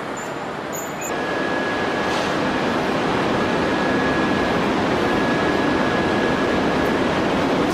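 Steady loud roar of heavy forge-shop machinery working a red-hot shaft forging, getting louder about a second in, with a faint high whine running through it.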